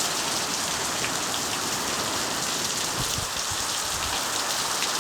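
Heavy rain pouring down steadily, with a few faint ticks.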